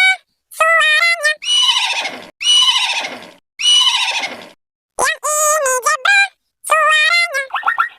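A high-pitched cartoon singing voice sings a short phrase, then a horse whinnies three times, each call falling in pitch and fading; the singing returns about five seconds in.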